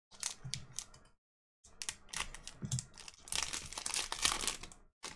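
A Topps Gypsy Queen baseball card pack's wrapper being torn open and crinkled by hand. There is a short spell of crackling, a brief pause, then about three seconds of denser crinkling and tearing.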